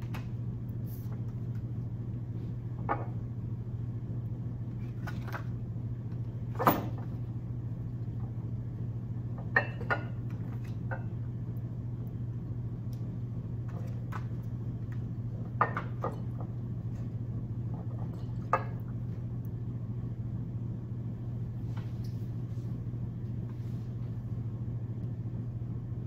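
Glass bottles being handled and set down on a hard bench: a handful of separate clinks and knocks, spread out, over a steady low hum.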